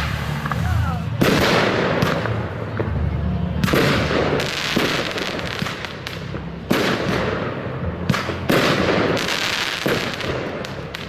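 Fireworks display: aerial shells bursting in a run of sharp bangs, about one a second, each trailing off in a rolling echo.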